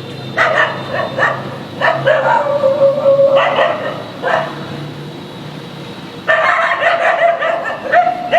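Dog barking in quick bursts: a few sharp barks, then a longer drawn-out cry, a pause of about two seconds, and another rapid run of barks near the end.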